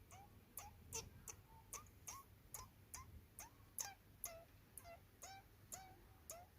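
Cat lapping milk: faint, soft wet clicks repeating about two to three times a second, each with a tiny plinking tone.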